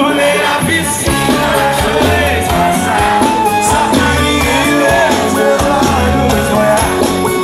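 Live sertanejo band music with singing over a steady drum and bass beat.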